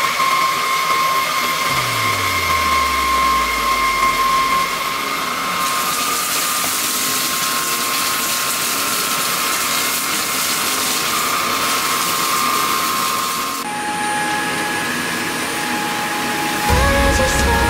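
Miro The Zero S9 cordless stick vacuum cleaner running steadily, a hiss of airflow with a whine from the motor. Its sound turns brighter and hissier about six seconds in, and shifts again near the end.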